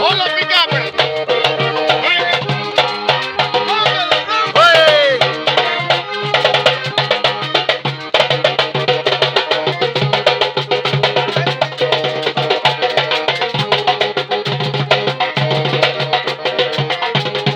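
Tambora drum played in a busy, driving rhythm within lively Latin music, with other instruments carrying a melody.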